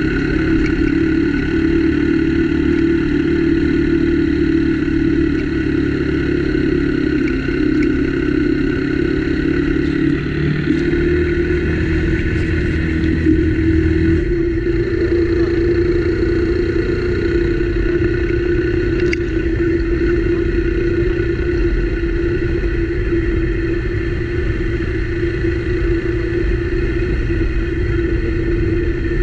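Motorcycle engine running steadily at a low cruising speed, heard from the rider's seat. Its tone steps up slightly about ten seconds in, and a low rumble drops away a few seconds later.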